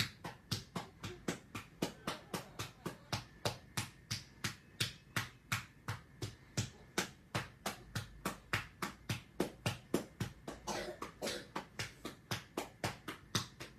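A hand patting a child's back in a fast, steady rhythm, about three to four pats a second: back-patting to help loosen phlegm from a cough.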